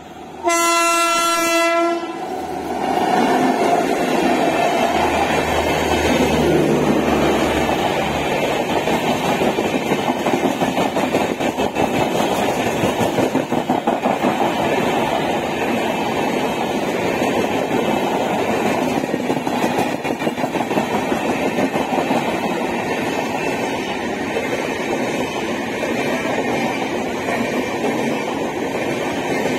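WAP-7 electric locomotive sounding one horn blast of about a second and a half at a steady pitch, then the express train of LHB coaches running past at speed, wheels clattering over the rail joints.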